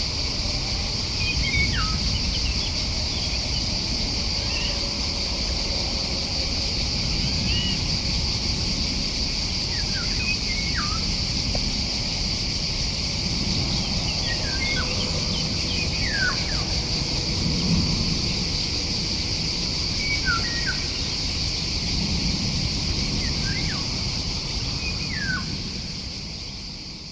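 Birds calling: short whistled notes that slide sharply downward come every few seconds, over a steady high-pitched drone and a low background rumble. The whole sound fades out near the end.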